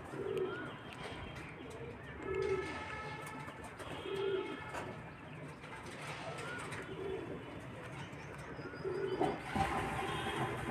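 A pigeon cooing, one low coo about every one and a half to two seconds, with faint metallic scrapes and clicks of a steel spatula stirring vegetables in a steel wok.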